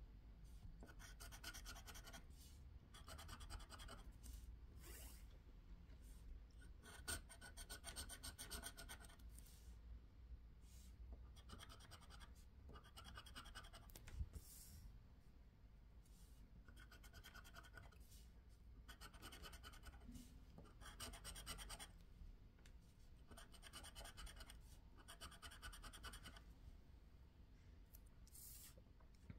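Faint scratching of a scraper over the coating of a scratch-off lottery ticket, in bursts of rapid strokes about a second long with short pauses between.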